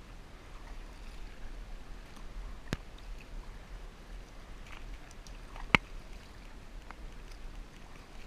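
Kayak being paddled: a steady wash of water from the paddle strokes and the moving hull, with two sharp knocks about three seconds apart, the second the loudest.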